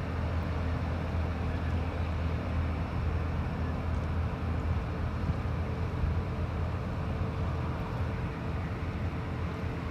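Steady low rumble and hum of a moored ro-ro train ferry's machinery running at its berth, with a constant hiss over it.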